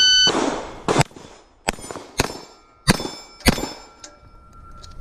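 A shot timer's start beep, then a quick string of about six shots from a Staccato XL 2011 pistol over the next three seconds, answered by steel plates clanging and ringing on after the hits.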